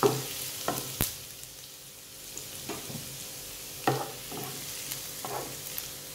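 Chopped garlic and ginger sizzling in hot sunflower oil in a nonstick frying pan, starting to brown, with a wooden spatula stirring them: a steady sizzle broken by about six scrapes and knocks of the spatula on the pan.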